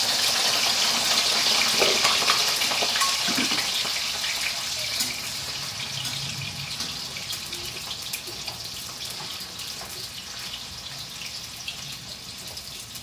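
Tofu cubes frying in hot oil in a wok: a loud sizzle that fades slowly as they fry, with occasional light scrapes and taps of a metal spatula against the pan.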